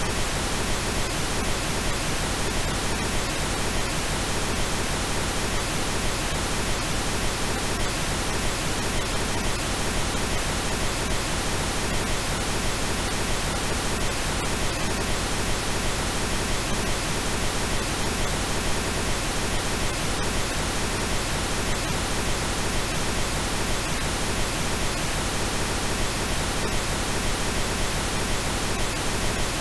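Steady computer-generated pink noise: an even, unchanging hiss across all pitches, with no breaks or events.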